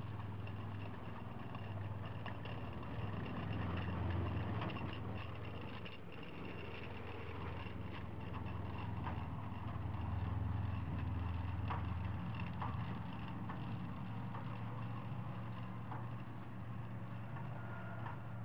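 Six-wheel amphibious ATV on half tracks driving, its engine a steady low hum that swells twice, with irregular metallic clinking from the steel track guides touching each other, a sign of under-inflated tires.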